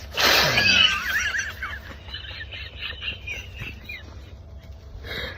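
Stifled, high-pitched giggling and squealing, opening with a sudden breathy burst of laughter and fading into quieter choppy giggles: laughing at a fart while trying to stay silent in a hunting blind.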